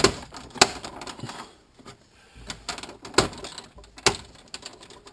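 Irregular sharp clicks and knocks of car interior trim pieces being handled and pried loose by hand, about seven in all.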